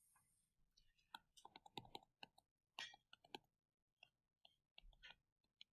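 Near silence, with faint scattered clicks of a stylus tapping and sliding on a touchscreen while handwriting.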